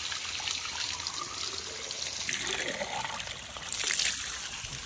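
Water pouring steadily from a natural spring fountain's spout and splashing below, briefly louder about four seconds in.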